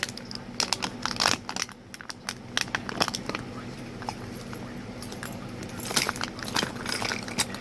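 Irregular small clicks, clinks and rustles of objects being handled, over a steady low hum.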